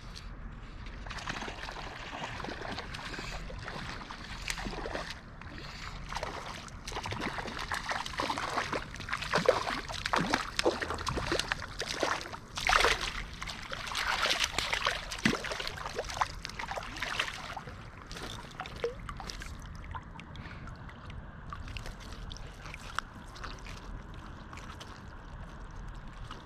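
Water splashing and sloshing in irregular bursts, with sharp little splats, as a netted trout is handled in the landing net to be unhooked. It settles about two-thirds of the way through into the steady rush of the river.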